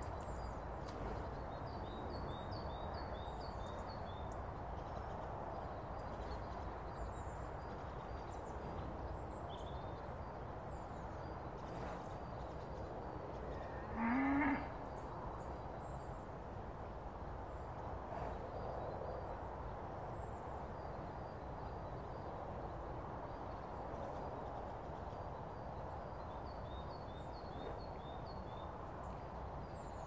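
Rural pasture ambience: a steady background hiss with small birds singing in short, quickly repeated high phrases near the start and again near the end. About halfway through, one short moo from cattle, rising slightly in pitch, stands out as the loudest sound.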